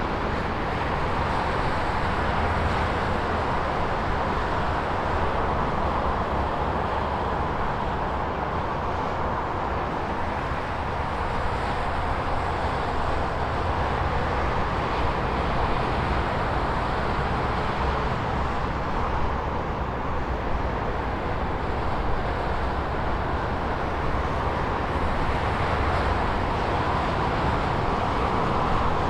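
Continuous highway traffic: a steady wash of cars passing by, tyre and engine noise with a low rumble, swelling and easing gently as vehicles go past.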